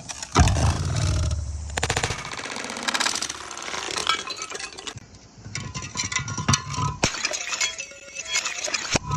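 Glass bottles smashing: a loud crash about half a second in, then a long run of shards clinking and tinkling.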